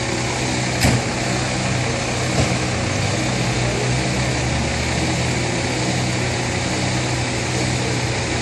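Steady hum of an idling motor vehicle engine, with a single sharp click about a second in.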